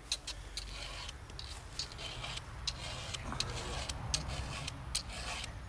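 Stihl chainsaw chain being sharpened by hand with a round file: short, sharp file strokes across the cutter teeth, about three a second, with uneven gaps.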